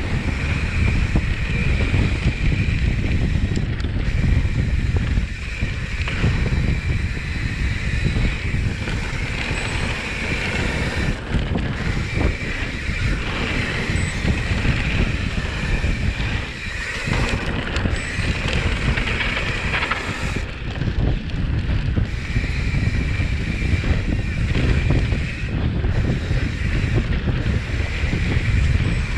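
Mountain bike descending a dirt singletrack at speed, with wind rushing over the camera microphone and tyres rolling over the dirt. A high buzzing comes and goes over the rush.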